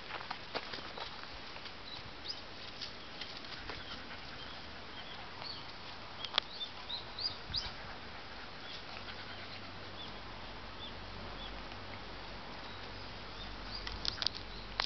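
Short, high bird chirps scattered throughout, with sharp clicks and rustling about halfway through and a burst of clicks near the end.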